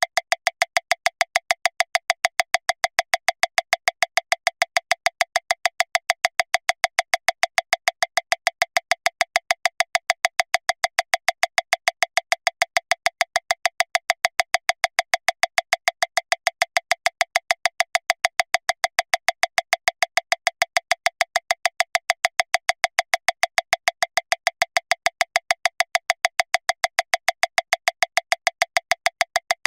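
Metronome clicking at 405 beats per minute, a little under seven short, sharp clicks a second, every click alike with no accented beat.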